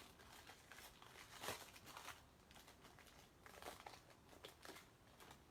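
Faint crinkling and tearing of a baseball card pack wrapper being handled and opened, in scattered rustles, the most distinct about a second and a half in.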